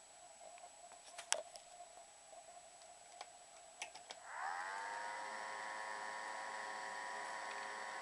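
A few clicks, then about four seconds in the small electric fan motor of a homemade plastic-bottle air filter spins up with a quick rising whine and settles into a steady whirring whine with a hiss of moving air.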